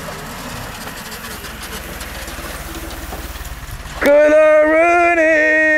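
Open military jeep's engine running under a steady rushing noise. About four seconds in, a much louder long held note starts, wavering slightly in pitch.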